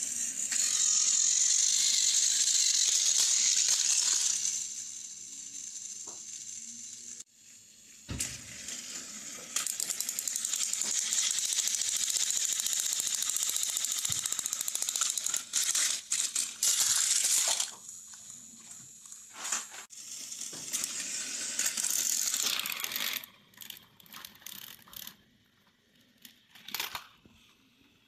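Battery-powered toy train engines whir and rattle along plastic track, their small electric motors and gears buzzing in long stretches. Sharp plastic clacks and clatters come between the runs, as engines crash and tumble off the track onto the floor.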